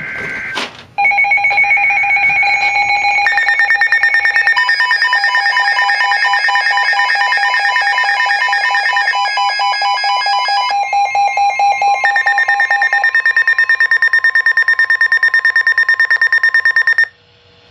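Emergency Alert System signal on a weather-radio broadcast: a short burst of data tones, then a loud attention signal of several electronic tones layered together and pulsing rapidly, some tones joining and dropping out along the way, which cuts off suddenly near the end.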